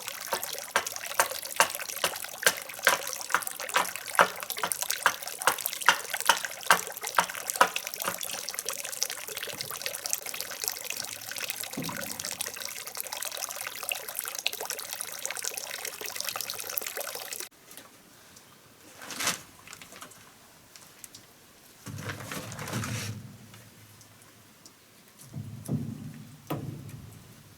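Running water trickling and splashing steadily, with many sharp little splashes and clicks in it; it cuts off abruptly about two-thirds of the way through. After that it is much quieter, with a single click and a few low handling knocks and rustles.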